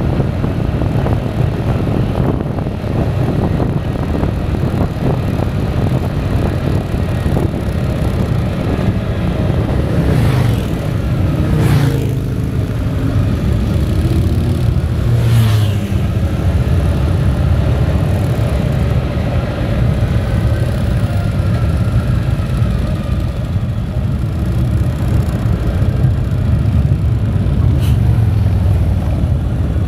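Steady wind rush and engine rumble of a motorcycle riding at road speed, heard from the bike itself. A few brief louder swells come in about ten to sixteen seconds in.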